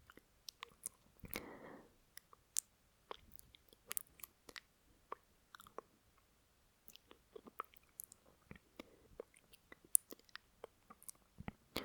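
Wet mouth clicks and lip smacks from a voice performer's mouth, many small separate clicks in an irregular run, with a short breath about a second in and another starting near the end. A close binaural recording.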